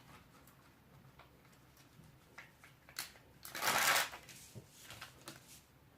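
Handling noises: scattered light ticks, a sharper click about three seconds in, then a brief rustle lasting about half a second.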